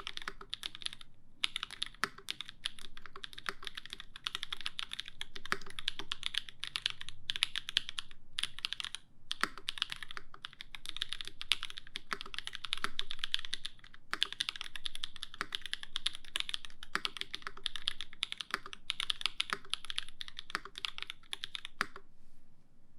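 Steady fast typing on an LZ CLSm mechanical keyboard with lubed Drop Holy Panda tactile switches, an aluminium plate and GMK keycaps, broken by a few brief pauses. The typing stops about a second before the end.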